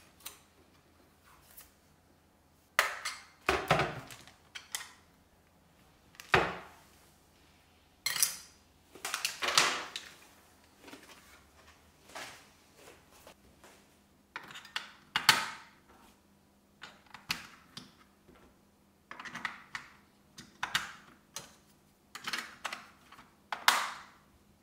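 Irregular plastic knocks, clicks and scrapes from handling a white plastic bathroom scale on a wooden table, its battery compartment opened and batteries handled.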